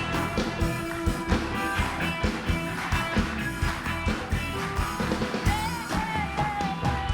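Live studio house band playing an upbeat rock tune with a steady drum beat under sustained instrument chords.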